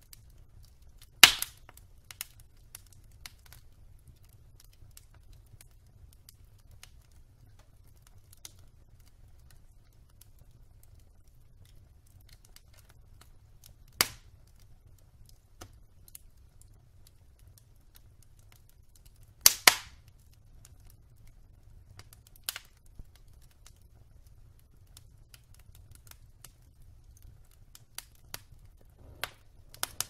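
Wood logs burning in an open fireplace, crackling with scattered small snaps and a few sharp pops: a loud pop about a second in, another around fourteen seconds, and a double pop near twenty seconds.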